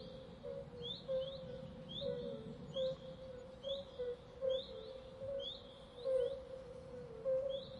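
A songbird calling: short upward-sweeping chirps about once a second, sometimes in quick pairs, over a steady low tone.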